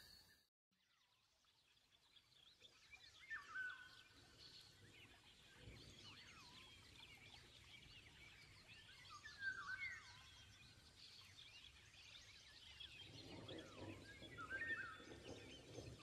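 Faint forest ambience: many birds chirping and calling over a low hiss, starting after about two seconds of silence. A louder call stands out three times, about three, nine and fourteen seconds in.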